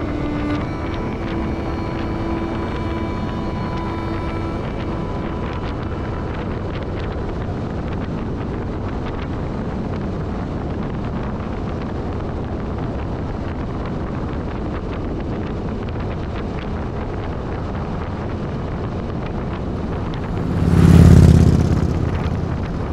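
Motorcycle engine running steadily at cruising speed, with wind buffeting the microphone. Near the end a loud, deep whoosh swells up and dies away.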